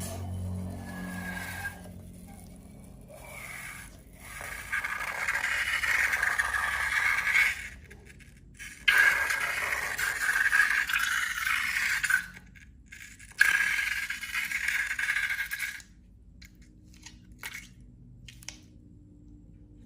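Scraping in three stretches of a few seconds each, as slime and balloon materials are handled and worked, followed by a few light clicks near the end.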